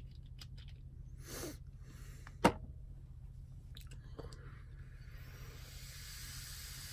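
A sharp click about two and a half seconds in, then a long drag on a vape mod firing a 0.1-ohm coil at 83 watts: a steady hiss of air and vapour drawn through the atomizer, starting about four seconds in.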